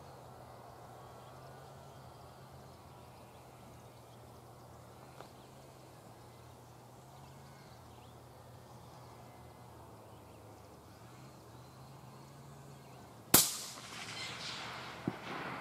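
A single 6.5x47 Lapua rifle shot about thirteen seconds in: a sharp crack followed by a rolling echo that dies away over about two seconds. A fainter sharp crack comes about a second and a half after the shot. Before the shot there is only quiet outdoor ambience with a low steady hum.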